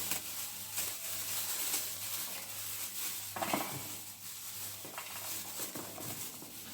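Dry cowpeas and beans rattling and sliding against a saucepan as they are poured and sorted by hand, a steady hissing patter with a few sharper clinks about three and a half and five seconds in.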